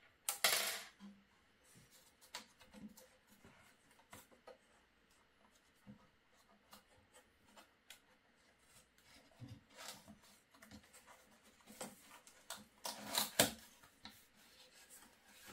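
Foam and cardboard packing being pulled and rubbed out of a new 3D printer: scattered scraping rustles with light clicks and knocks. The loudest rustles come about half a second in and again about thirteen seconds in.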